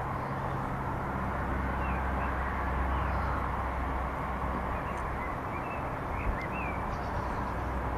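Steady outdoor background rumble and hiss, with a few short bird chirps in the middle and again near the end.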